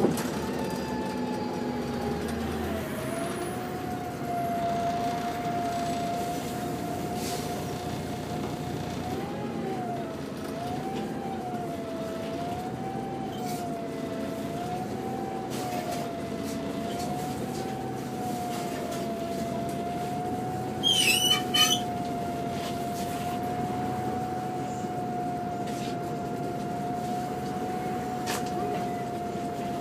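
Volvo B7TL double-decker bus on the move, heard from inside the lower saloon: engine and drivetrain running with a clear whine from the Voith gearbox that slides down in pitch over the first few seconds, then holds fairly steady with a gentle wavering rise and fall as the speed changes. A brief loud high-pitched double sound cuts in a little past two-thirds of the way through.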